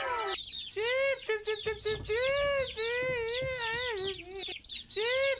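A quick run of short chicken calls, a dozen or so, each rising and falling in pitch, some with a wavering middle.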